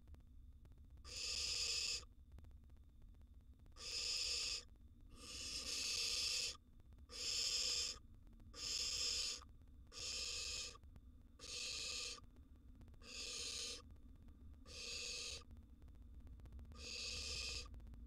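Barn owl nestlings giving rasping, hiss-like begging calls, about ten in a row, one roughly every one and a half seconds, each lasting under a second.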